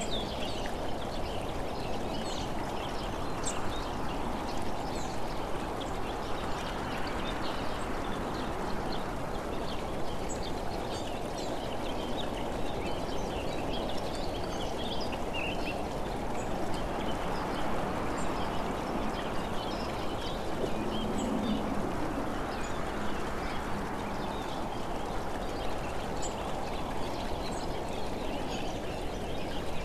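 Steady rumble of tyre and wind noise from a vehicle driving along a road, with scattered short high chirps and ticks throughout.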